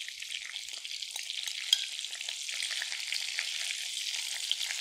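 Small stuffed eggplants frying in hot mustard oil in a kadai, a steady sizzle full of small crackles. There is one sharper click a little under two seconds in.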